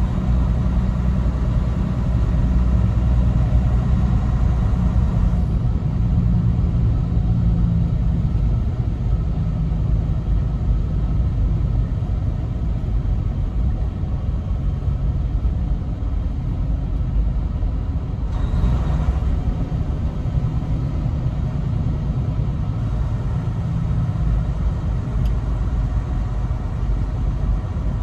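Heavy truck's diesel engine and road noise heard from inside the cab: a steady low rumble as the truck drives. A brief hiss cuts in about two-thirds of the way through.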